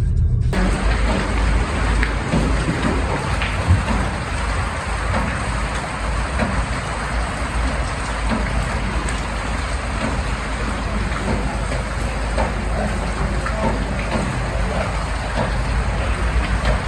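Steady rain-like hiss with scattered small ticks over a low rumble, starting suddenly about half a second in.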